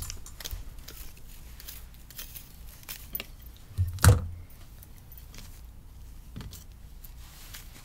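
Handling noise from wigs being picked up and pulled on: soft rustles and small clicks, with a louder thump about four seconds in.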